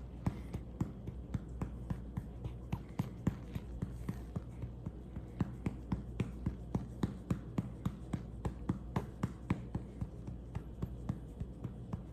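Hand patting a newborn's back in a steady rhythm, about three to four pats a second, to bring up a burp, over a low steady hum.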